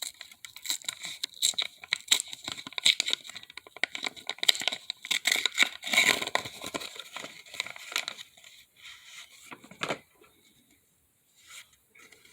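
A Pokémon card pack being torn open and its wrapper crinkled: dense, sharp crackling rips for about ten seconds, then only a couple of faint small sounds.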